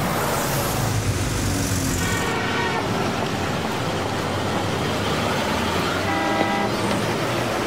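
City street traffic noise from passing cars, with car horns honking twice: once about two seconds in and again about six seconds in.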